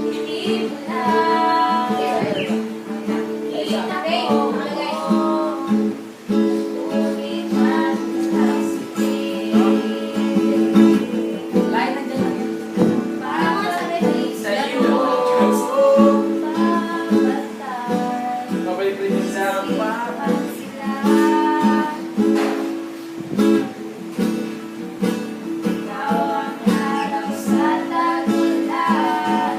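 Acoustic guitar strummed steadily with a voice singing over it.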